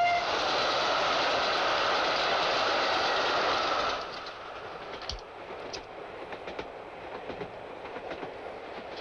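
Steam locomotive running past: its whistle cuts off just as it starts, then a loud rush of steam and running gear for about four seconds. The sound then drops to the quieter running of the train heard inside a carriage, with faint clicks of the wheels.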